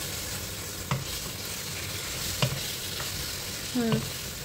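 Pork pieces and chopped vegetables in sauce sizzling steadily in a non-stick frying pan while being stirred with a wooden spatula, with a couple of sharp knocks of the spatula against the pan.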